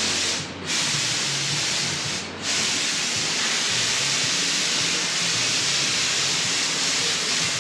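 Paint spray gun spraying top coat, a steady hiss with two brief breaks where the trigger is let off, about half a second in and just after two seconds in.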